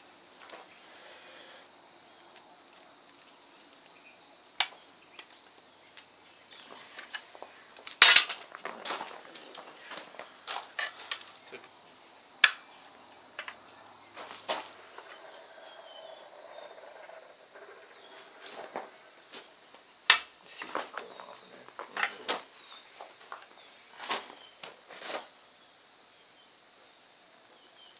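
Scattered metal clanks and clicks as vise grips and a red-hot steel bar clamped in a bench vise are worked, twisting the stock into an auger bit; the loudest knocks come about 8 and 20 seconds in. A steady high insect drone runs underneath.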